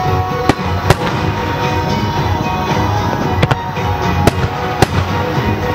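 Aerial firework shells bursting, several sharp bangs spread over the few seconds, over music playing throughout.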